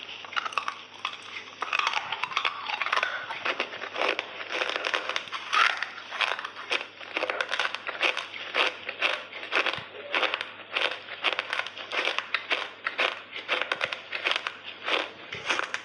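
Close-up eating sounds: wet, clicky chewing and squishing of soft food, about three crackly clicks a second.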